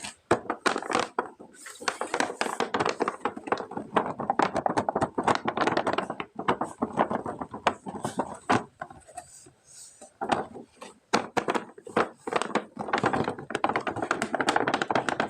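Toy packaging being handled and opened: dense crinkling and clicking of plastic and cardboard with occasional thunks, in several runs broken by short pauses.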